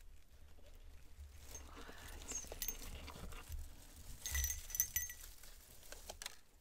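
Small witch's bells tinkling briefly twice as a dried-twig mini wreath is lifted out of a box, with rustling and crackling of shredded paper filler.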